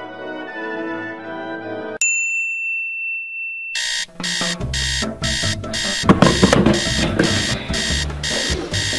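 Light music that stops abruptly about two seconds in, giving way to a single held electronic tone. Then a digital alarm clock starts beeping rapidly, about two beeps a second, with rustling and knocks underneath.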